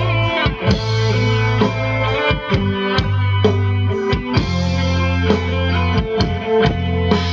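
Live amplified gamelan-and-band music playing an instrumental passage. Sustained low bass notes change about every second or two, under steady pitched melody lines and drum strokes roughly twice a second.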